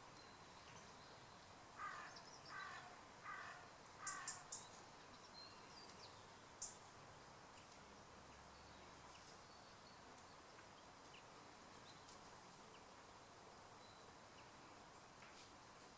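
Quiet outdoor background with a bird calling four times in quick succession about two seconds in, then a few short high chirps around four and six and a half seconds in.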